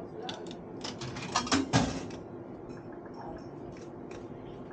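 Bar slot machine being played: a short run of clicks and knocks about a second in, loudest near two seconds, over steady faint machine tones.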